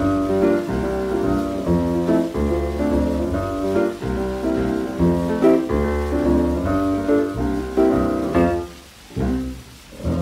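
Closing instrumental bars of a 1940s R&B trio record played from a 78: piano chords over a bass line. The playing thins out and ends on two final chords near the end, with faint record surface hiss underneath.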